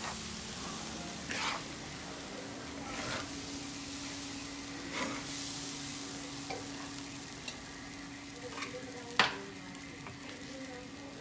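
Zongzi filling sizzling as it is stir-fried in a wok, with a spatula scraping and knocking against the pan now and then. The loudest knock comes a little after nine seconds.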